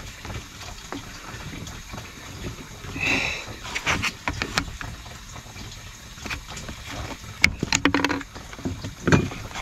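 Plastic push-fit pipe and fittings being handled and pushed together: low rustling and scattered clicks and knocks, with a brief rustle about three seconds in and a cluster of sharp clicks about seven and a half seconds in.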